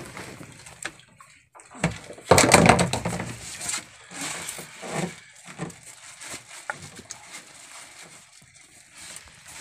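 Seawater splashing and sloshing against the side of a boat as a weighted cylinder on a handline is lowered into the sea, with the loudest splash about two seconds in.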